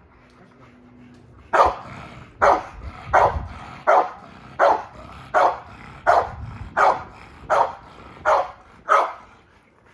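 A dog barking in a steady series: about eleven single barks, each roughly three-quarters of a second after the last, starting about a second and a half in.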